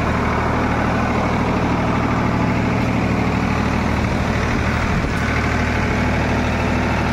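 Farmtrac 50 tractor's three-cylinder diesel engine running steadily at 1500 rpm with no load.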